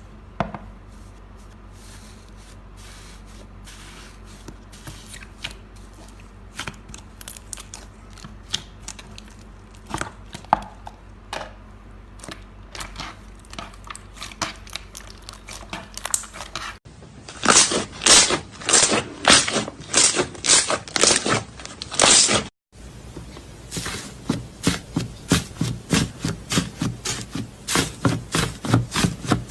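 Slime being squeezed and poked by hand, making sticky clicks and pops: scattered soft clicks at first, then loud, regular crackling presses from a little past halfway, and after a brief gap a quick, even run of pops.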